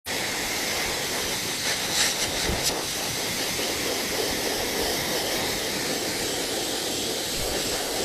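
Hose-type pet blow dryer blowing a steady hiss of air while it dries a wet cat's fur, with a few faint clicks about two seconds in.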